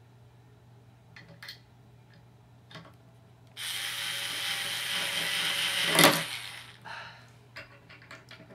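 Power drill running for about two and a half seconds, drilling out a screw hole, with a sharp peak just before it stops; light clicks of handling before and after.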